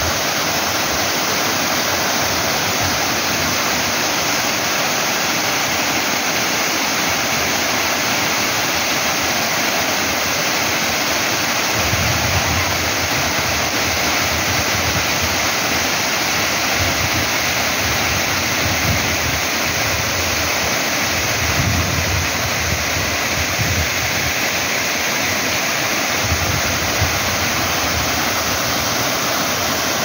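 Artificial waterfall cascading over stacked rocks into a pond: a steady, dense rush of falling water, with low rumbling that comes and goes in the second half.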